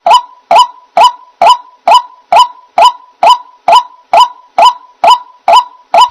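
White-breasted waterhen call repeated loudly at a perfectly even pace, a short honking note a little over twice a second.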